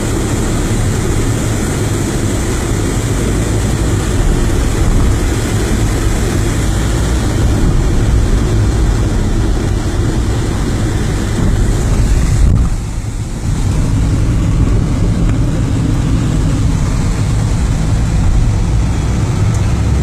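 Steady loud rushing of heavy rain and water pouring onto the road, heard from inside a moving vehicle over the rumble of its engine and tyres; the noise dips briefly about 13 seconds in.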